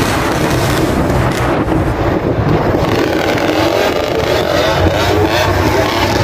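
Several small 50cc kids' dirt bike engines running steadily as the group rides along together.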